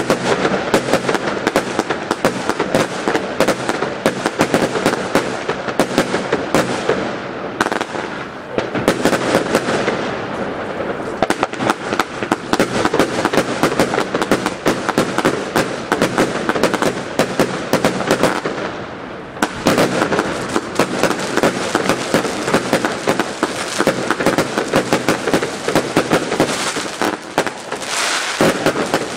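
Consumer New Year's fireworks going off in quick succession: many shots launching and bursting overhead, with brief lulls about 8 and 19 seconds in.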